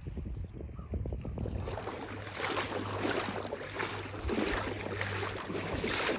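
Wind buffeting the microphone over small wind-driven waves lapping at a lake shore, a rough, even rush that grows stronger about a second in.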